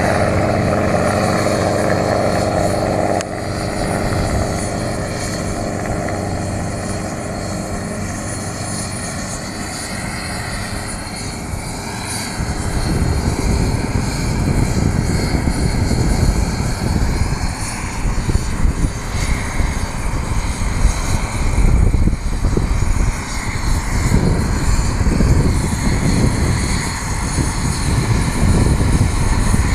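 Helicopters running on the ground with rotors turning: a steady engine and rotor noise with a stack of steady tones that drops away about three seconds in. From about twelve seconds on, a louder gusty low rumble with short surges takes over, as wind or rotor wash buffets the microphone.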